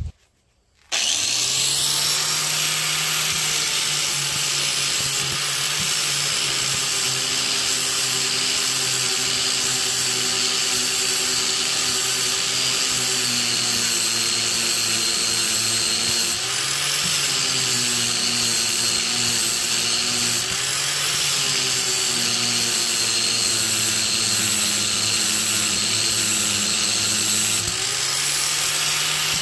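Corded angle grinder with an abrasive disc grinding the steel end of a railroad spike into a small axe head, starting about a second in. It runs steadily, its pitch dropping briefly several times as it is pressed into the steel, then picking back up.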